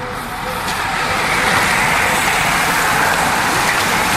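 A pack of road-racing bicycles passing close by: a hiss of tyres on the road surface that swells over the first second or so and then holds steady.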